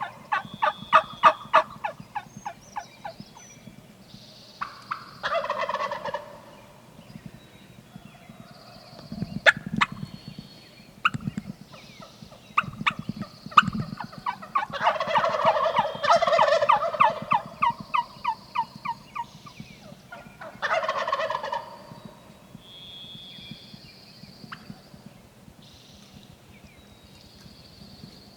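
Wild turkeys gobbling several times, each gobble a loud rattling burst, with runs of quick, evenly spaced yelping notes between them.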